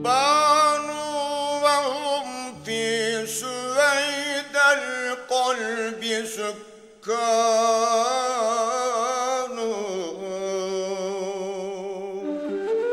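Male voice singing long, ornamented melismatic phrases of a malagueña, almost unaccompanied, with a short break about seven seconds in.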